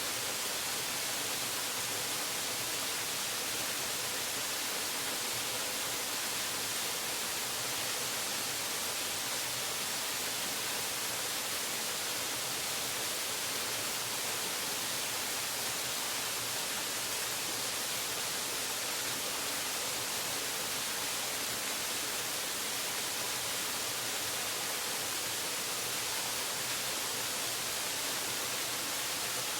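Waterfall: water falling in a steady, unbroken hiss that never changes in loudness.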